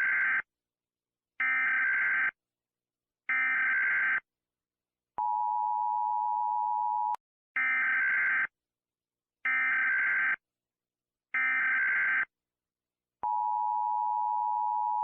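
Emergency Alert System signalling: three screeching SAME digital data bursts about a second each, then a two-second steady two-tone attention signal, with the whole sequence played twice.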